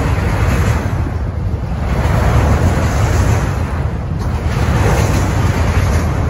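Wind buffeting the microphone in gusts over the steady rumble of a freight train of autorack cars rolling past.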